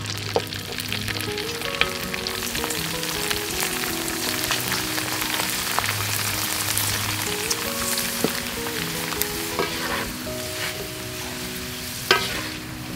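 Shrimp chips deep-frying in hot oil in a metal wok, a steady sizzle, with a metal skimmer and spoon scraping and clicking against the wok as the chips are turned. There is a sharper clank near the end.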